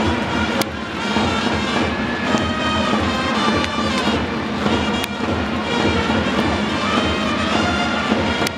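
Baseball cheering-section music: trumpets playing a fight-song melody over a dense stadium din, with a few sharp cracks about half a second in, around five seconds, and near the end.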